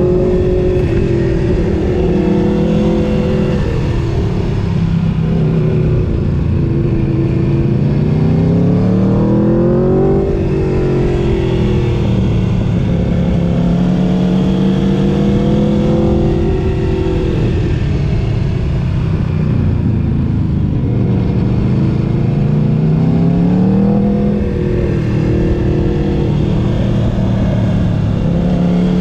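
Motorcycle engine running continuously under way, its pitch rising and falling as the throttle is opened and closed. The revs climb steadily twice, about a third of the way in and again near the end, and each climb ends in a quick drop.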